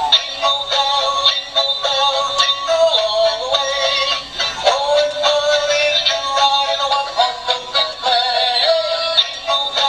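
Electronic Christmas tune from a battery-powered Santa-on-the-moon ornament's built-in sound chip, thin and tinny with no bass, as from a tiny toy speaker.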